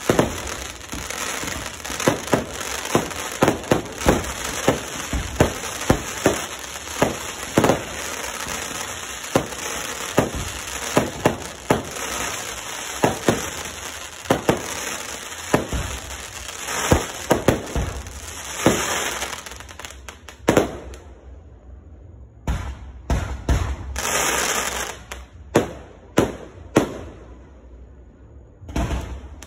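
Consumer fireworks going off in quick succession: a steady run of sharp bangs from shots bursting, about one or two a second, over continuous crackling and hiss. After about twenty seconds the barrage thins to a few scattered bangs and short bursts of crackle.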